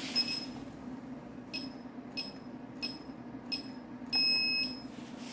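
Gotway/Begode MCM5 V2 electric unicycle's buzzer beeping as its power button is pressed five times while the handle button is held, to toggle shipping mode: five short, high beeps, then one longer beep about four seconds in.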